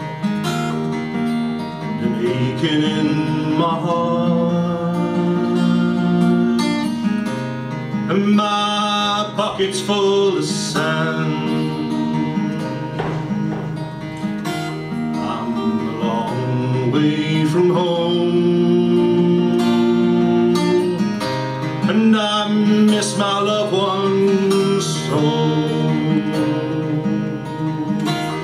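Steel-string acoustic guitar played solo through a stage microphone, a country-folk song picked and strummed in a steady rhythm.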